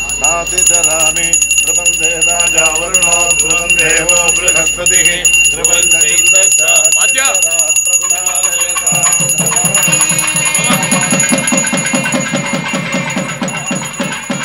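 South Indian wedding music: a nadaswaram melody with a bell ringing steadily, and fast thavil drumming coming in about nine seconds in.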